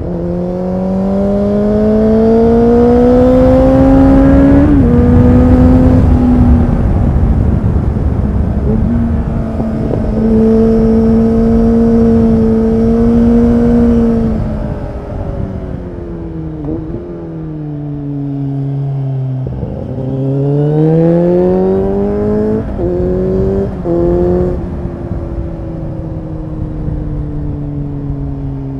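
Kawasaki Z800 inline-four engine through an Akrapovic exhaust, heard from the rider's seat. It pulls up in revs and upshifts about five seconds in, then holds steady at speed with heavy wind rush. Near the middle the revs fall away as the bike slows, then climb again with two quick upshifts about three-quarters of the way through, before settling into a steady cruise with the revs slowly easing.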